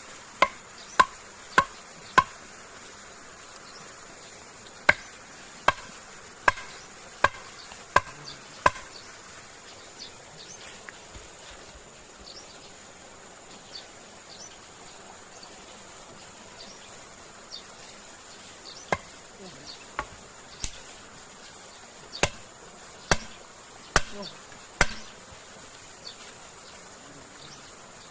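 Chopping with a hand tool: sharp single strikes in runs of four to six, about two-thirds of a second apart, with a long pause in the middle. A steady high-pitched insect drone runs underneath.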